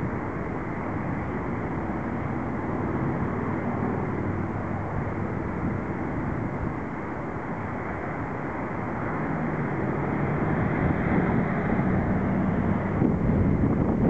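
Wind buffeting the microphone over the steady drone of a Saab 340's twin turboprop engines and propellers on final approach. The drone grows louder in the last few seconds as the airliner nears touchdown.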